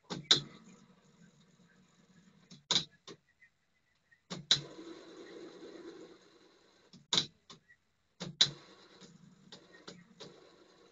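Nikola Tesla MDS450 cassette deck's transport keys clunking, three times setting the tape drive running and twice stopping it. Between the clunks the mechanism whirrs for a couple of seconds at a time, the gear drive running somewhat noisily.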